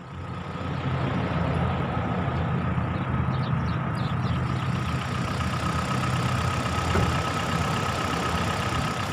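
Quad bike (ATV) engine idling, a steady low hum that fades in over the first second.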